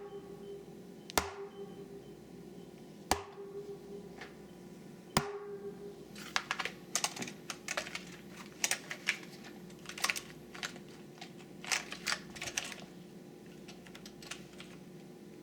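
Logitech K840 mechanical keyboard with Romer-G switches being struck and typed on. A few single sharp key strikes come about two seconds apart, each with a short ring after it. From about six seconds in come quick irregular runs of typing.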